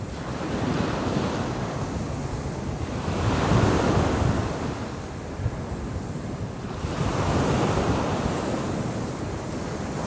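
Small sea waves breaking and washing over a pebble beach, the surf swelling louder twice, with wind buffeting the microphone.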